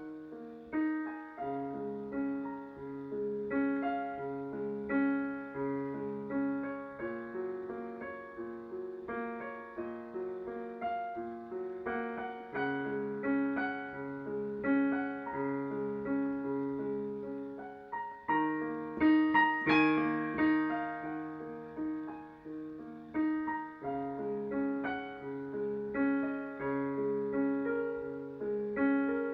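Solo piano playing a slow, repeating figure of notes over held low notes, growing louder and brighter about two-thirds of the way through.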